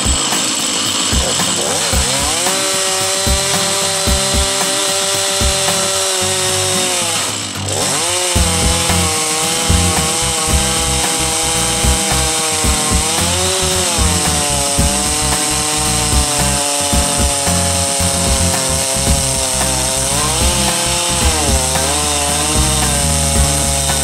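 Stihl MS391 two-stroke chainsaw on a Logosol Farmer's Sawmill ripping a slab along an aspen log, running under load. Its pitch dips briefly about seven seconds in, then sags and recovers a few times as the cut goes on.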